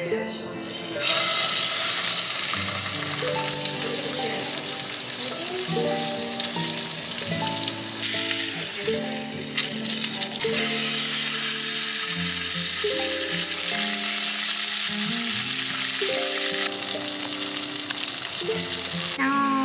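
A fish fillet and then dumplings frying in oil in a pan, a steady sizzle, with a soft melody playing underneath.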